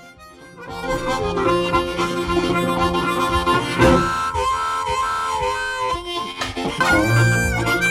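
Background music led by a harmonica playing long held notes over a steady low accompaniment.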